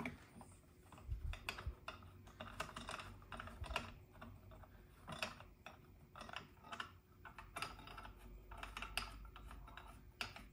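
Faint, irregular light metallic clicks and taps as a milling vise is pressed against its positioning jig and its hold-down nuts are snugged up, a few clicks a second.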